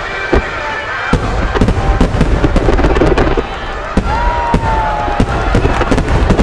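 Starmine finale of large aerial firework shells: a dense, rapid run of bursting booms and sharp cracks over a continuous low rumble, growing denser about a second in. About four seconds in, a held tone falls slightly in pitch for about a second.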